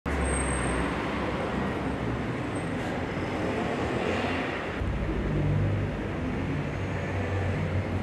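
Steady background noise: a low rumble with an even hiss above it and no distinct events.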